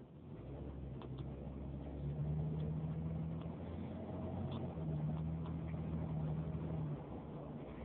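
Car engine and road noise heard from inside the cabin as the car pulls away from a stop and accelerates, a low steady hum that grows louder, with a few faint ticks.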